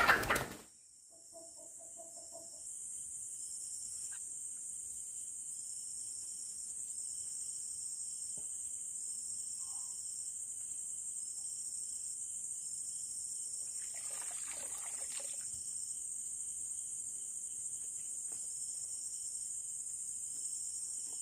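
Crickets calling steadily: a high-pitched continuous trill with a second, pulsing chirp beneath it. It opens with a brief loud burst, and a short rustle comes about fourteen seconds in.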